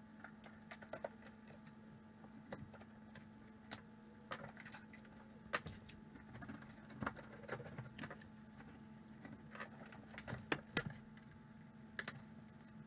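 Scattered light knocks, taps and clicks of hand work on a cut section of drywall at the wall, over a steady low hum.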